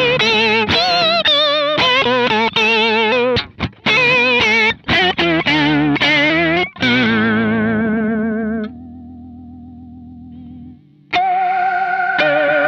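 Distorted electric guitar played through a Kemper profiler with an octave effect and a strong vibrato that makes every note warble. It plays short choppy chords and notes, lets one note ring quietly from about 9 seconds, then strikes a new chord near the end.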